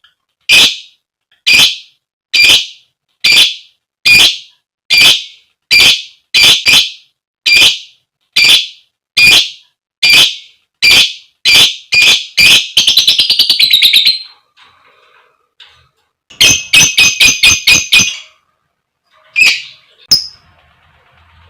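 Female lovebird giving loud, sharp, high-pitched calls ('koek koek'), repeated at a steady pace of a little more than one a second, then breaking into a brief fast rattling chatter ('ngekek'). This is followed by a quick run of calls and two last calls: the calls to draw a male.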